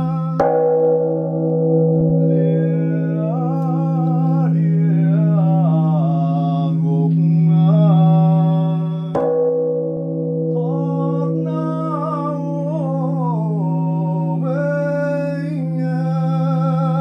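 Large Buddhist temple bell struck twice, about half a second in and again about nine seconds in, its deep hum ringing on steadily between strikes. A man's chanting voice rises and falls over the ringing between the strikes.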